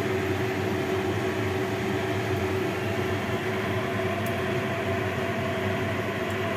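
Steady mechanical hum with a rush of air and two held tones in it.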